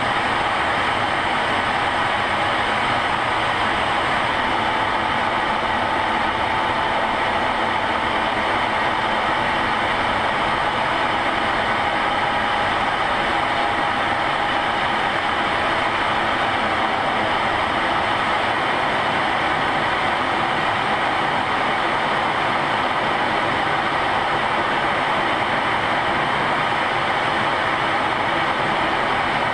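Steady cockpit noise of a fighter jet in flight: a constant rush of engine and airflow with a faint, slightly wavering whine running through it.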